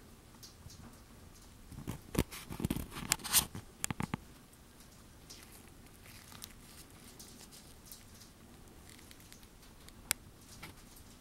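Handling noise from gloved fingers turning a ring: a cluster of crackles and clicks from about two to four seconds in, then one sharp click near the end.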